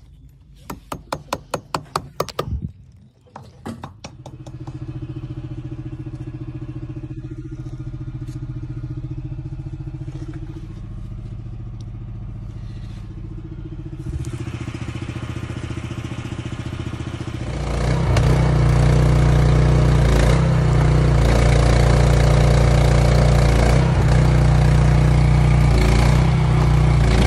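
A hammer rapping the steel pulling cone and clevis about nine times in quick succession. Then an engine starts running steadily, presumably the power unit of the trenchless pipe puller, and it gets much louder and stays loud about 17 seconds in as the pull takes up load.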